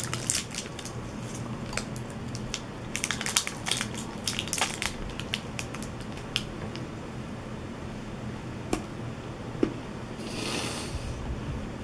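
Crinkling and crackling of plastic Kit Kat wrappers being peeled open and handled, dense for the first five seconds, then sparser. A short breathy hiss about ten seconds in.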